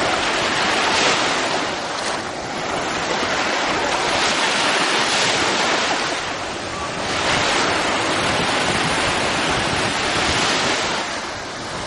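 Small sea waves breaking and washing over sand in the shallows, the surf rising and falling every couple of seconds as each wave comes in.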